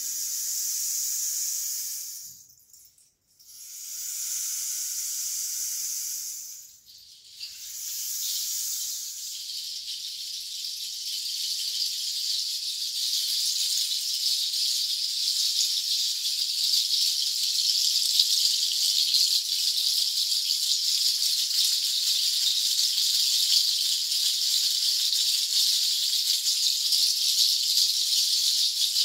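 A rainstick turned over three times, each pass a hiss of two to three seconds with short breaks between. About ten seconds in, a bundle of seed-pod shakers takes over, shaken in a steady, dense rattle.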